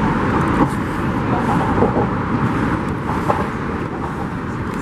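Steady traffic noise from cars on the Brooklyn Bridge roadway beneath the pedestrian walkway, mixed with the faint chatter of a passing crowd.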